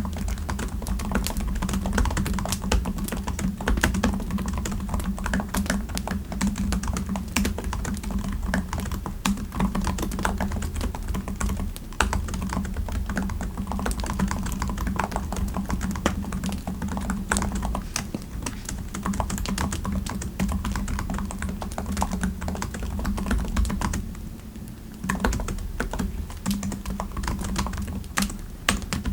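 Computer keyboard typing: a fast, continuous run of key clicks with a brief pause about five seconds before the end, over a steady low hum.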